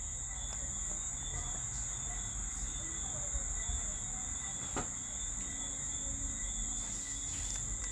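Steady high-pitched background drone, with a single faint click about five seconds in.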